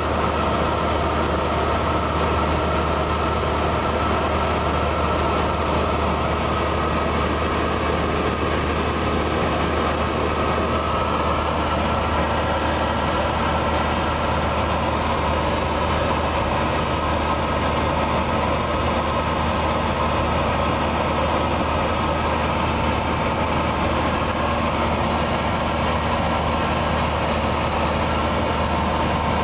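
Cessna 172S in flight, heard inside the cabin: the steady drone of its four-cylinder Lycoming IO-360 engine and propeller under an even rush of airflow.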